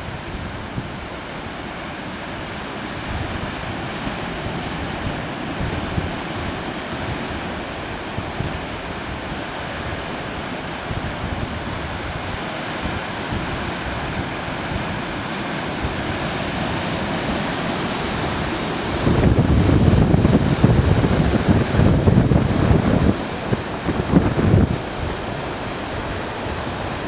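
Pacific surf washing against shoreline rocks as a steady rushing noise. From about two-thirds of the way in, wind gusts buffet the microphone in irregular low rumbles that are louder than the surf.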